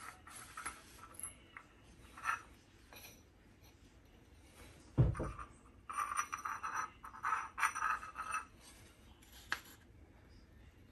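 A rag rubbing over a turbocharger's centre cartridge and hands handling the metal part: scratchy rubbing with light clicks and scrapes, and one dull thump about five seconds in, the loudest sound.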